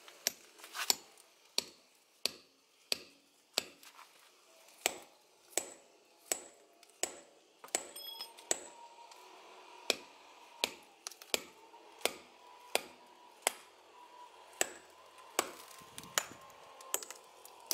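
Hand hammer striking steel plug-and-feather wedges set in a boulder, a steady series of sharp blows about one and a half a second with a few short pauses, driving the wedges to split the rock. From about halfway through, a thin metallic ring hangs on between blows.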